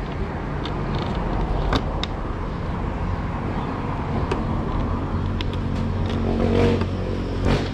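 A motor vehicle engine running steadily as a low hum, growing a little louder about halfway through, with a few light clicks of a plastic motorcycle fairing panel being handled.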